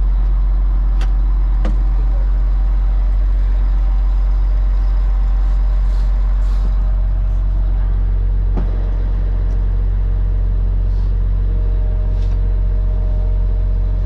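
Engine idling steadily with a deep, even hum. A few light clicks and knocks come from hands working at the opened console wiring.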